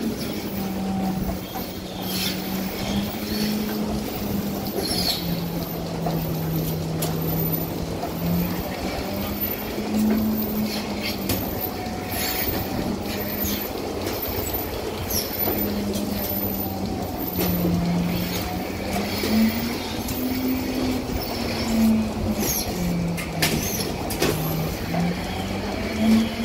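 Rotary milking parlour machinery running: a steady hum that drifts slowly up and down in pitch, with scattered clicks and short hisses of air from the milking units.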